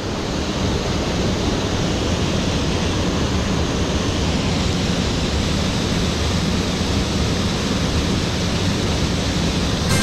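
Mountain stream water rushing, a steady, even noise.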